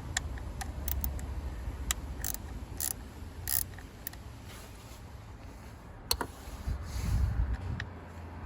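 Hand tools and plastic parts being handled at a car's engine computer (ECM) under the hood: a series of light clicks and a few short scraping rattles, over a steady low rumble of wind on the microphone.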